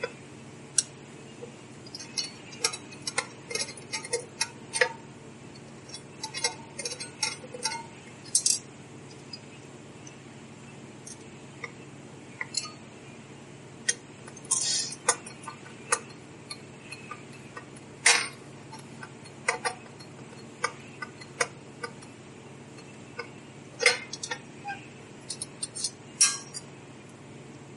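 Screwdriver backing out small 8/32 machine screws from the bottom of a metal instrument case: scattered light clicks and metallic clinks of the tool and screws against the case. A few louder clinks stand out partway through and near the end.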